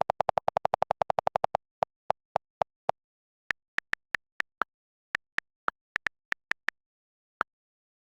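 A series of short electronic blips on a silent background. First comes a quick run of lower-pitched pips, about ten a second, that slows down over the first three seconds. Then scattered, irregularly spaced higher-pitched pips follow.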